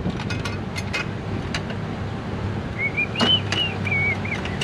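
Metal bolts and hand tools clicking and clinking as bolts are fed in by hand, over a steady low hum. From about three seconds in, a wavering whistle-like tone rises and dips.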